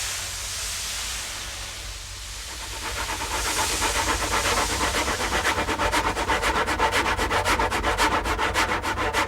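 Made sound effect: two airy, wind-like swells of hiss, then from about three seconds in a louder, fast rhythmic chugging like a steam train running.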